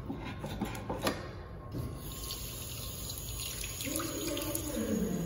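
Tap running water onto hands at a washbasin, starting about two seconds in after a couple of faint clicks, with a faint low hum in the last second.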